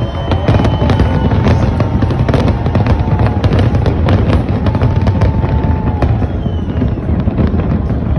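Fireworks display going off in a dense, continuous barrage of sharp cracks and bangs over a heavy low rumble.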